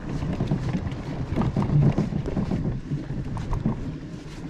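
A small boat's hull being dragged by hand up a sand beach, making an irregular scraping and grinding noise.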